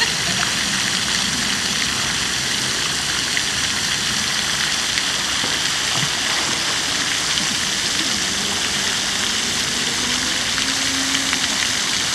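Steady splashing hiss of fountain water falling into a pond.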